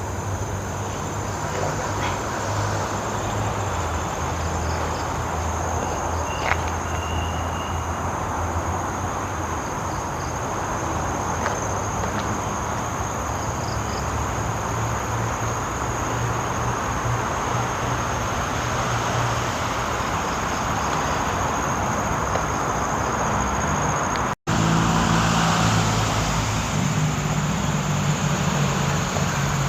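Steady roadway traffic noise: a shifting low rumble of passing vehicles on a nearby main road, under a continuous high-pitched drone of insects. The sound drops out for an instant about three-quarters of the way through.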